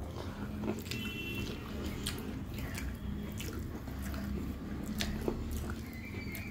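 Close-up chewing of a mouthful of rice and fish, with wet squishing and small clicks as fingers mix rice and fish curry on a steel plate.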